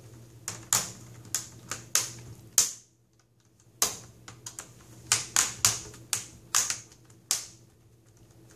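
The plastic screen bezel of an HP ENVY dv6 laptop being pressed back onto the lid, its snap-in clips clicking into place. There are two runs of sharp clicks, with a short pause about three seconds in.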